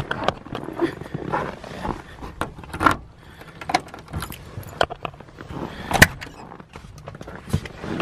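Footsteps in snow and jangling keys, then a key working the frosted cab door lock of a Mercedes-Benz van, with a sharp click of the door latch about six seconds in as the door is opened.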